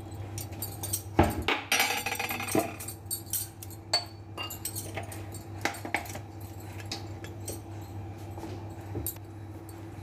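Small metallic clinks and clicks in a kitchen as oil heats in a steel pot, with a brief denser run of clinking between about one and two and a half seconds in, over a steady low hum.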